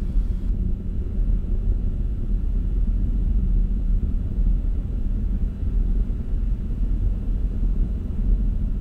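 Steady deep rumble of a Falcon 9 v1.1 rocket's nine Merlin 1D first-stage engines in powered climb, heard from far off on the ground.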